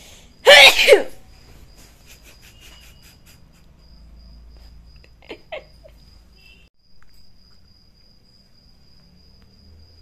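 A woman sneezes once, loudly and suddenly, about half a second in, followed a few seconds later by two brief vocal sounds. Crickets chirp faintly and steadily in the background.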